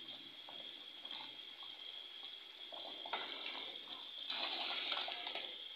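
Curry broth with potatoes and chicken bubbling at a boil in a metal pot, a steady hiss with crackling bubbles that grow louder about three seconds in.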